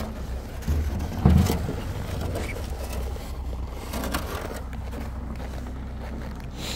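Footsteps crunching in snow over a steady low rumble, with a loud bump about a second in.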